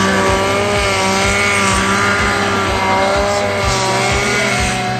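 Snowmobile engine running at high revs as the sled carves through deep powder, one steady high-pitched note that wavers slightly up and down with the throttle.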